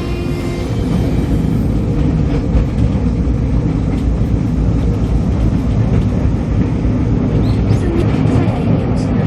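Tourist forest train running: a steady, loud rumble of the train in motion.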